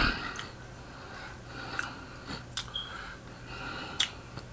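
Close-miked mouth sounds of a man eating: breathing through the nose and a few soft, sharp lip smacks or mouth clicks.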